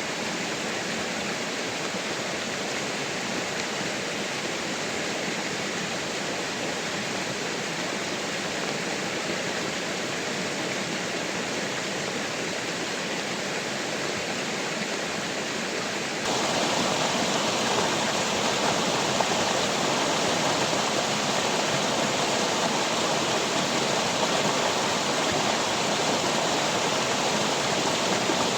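Steady rushing noise of water, even and unbroken, that jumps suddenly louder about sixteen seconds in.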